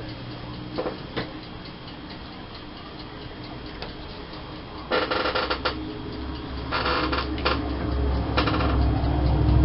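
Craft supplies being handled on a tabletop: a few light clicks and ticks, then short bursts of crinkling and rustling about five, seven and eight seconds in, with a low rumble building near the end.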